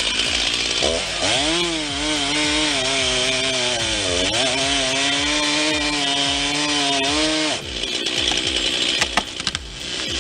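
Chainsaw running at high revs, its pitch dipping about four seconds in and climbing back, then cutting off sharply about seven and a half seconds in. Scattered cracks and knocks follow.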